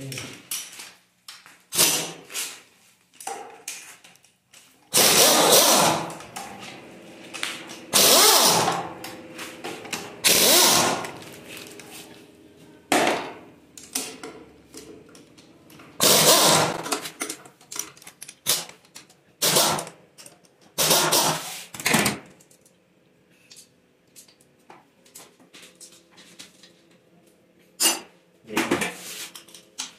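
Power tool run in short bursts of about a second, some seven times, with lighter tool clicks between: the intake manifold bolts being undone.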